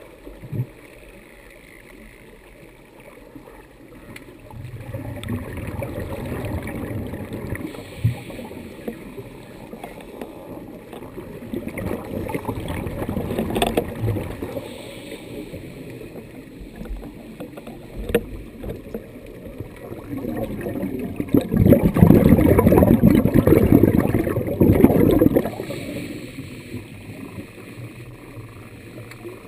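Scuba diver's exhaled bubbles gurgling past an underwater camera housing in three long bursts, the loudest about two-thirds of the way through, over a low steady hiss, with a few sharp clicks between them.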